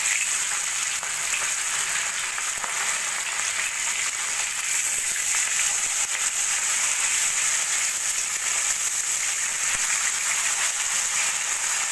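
Pieces of small carp sizzling steadily as they fry in hot oil in a metal kadai: an even, high hiss.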